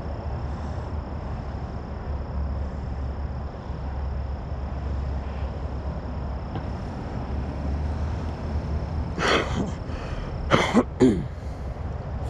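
A steady low rumble with a thin, steady high tone above it. Near the end a person coughs a few short times.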